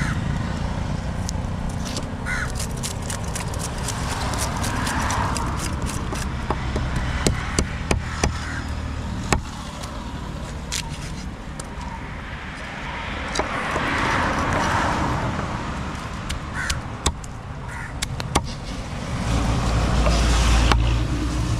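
Knife scraping and tapping on a thick wooden chopping block while tilapia are scaled and cut, with many short, sharp knocks. Passing road traffic runs underneath, swelling up three times.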